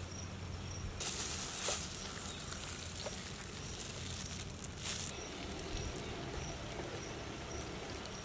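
Outdoor ambience: an insect chirping in a regular series of short, high chirps about twice a second, with a soft hiss in the middle stretch.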